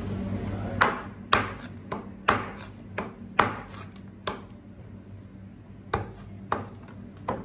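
Chef's knife chopping cobia flesh into cubes, the blade striking the cutting board about ten times at an uneven pace, with a pause of over a second about two-thirds of the way through.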